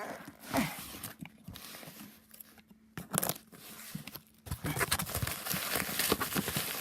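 A parcel being opened by hand: packaging tearing and crinkling with scattered clicks, sparse at first and busier and more continuous over the last couple of seconds.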